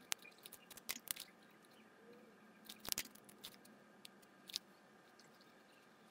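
Scattered faint clicks and scratches of a pen writing on lined notebook paper, with one louder tap about three seconds in, over a faint steady hum.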